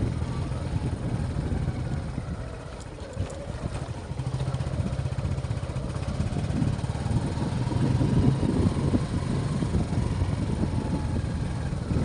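Small motorcycle engine running while the bike rides along a dirt path; the engine note eases off about three seconds in and then picks back up.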